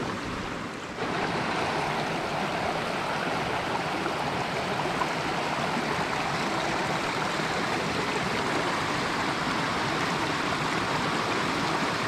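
Small mountain creek rushing over rocks and little cascades, a steady water noise that steps up slightly in level about a second in.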